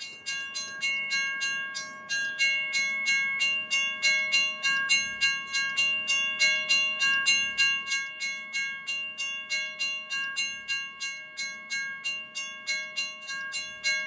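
Railroad crossing signal bell ringing in rapid, even strikes, about four a second, each strike ringing on: the warning that a train is approaching.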